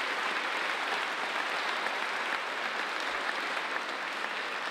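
Congregation applauding, many hands clapping steadily.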